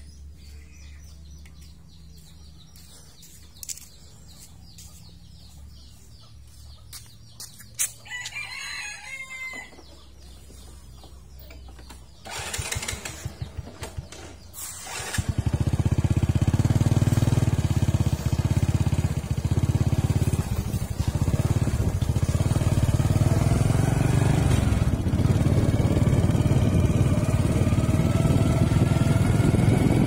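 A rooster crows once, then a vehicle engine starts with a few rough bursts and settles into loud steady running. Its pitch rises near the end as it speeds up.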